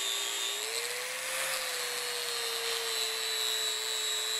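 Angle grinder with a sanding disc running steadily against hardened leaf-spring steel, a steady whine over the hiss of abrasion, finishing and polishing the blade. The whine rises a little about a second in as the load on the disc eases, then settles.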